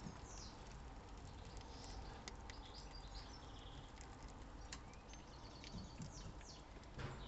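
Faint bird chirps now and then over a low, steady background hiss, with scattered small clicks.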